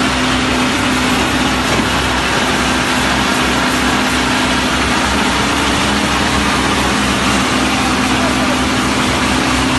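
Diesel engine of a concrete mixer pump running steadily at a constant speed, a loud, even drone with a steady pitch.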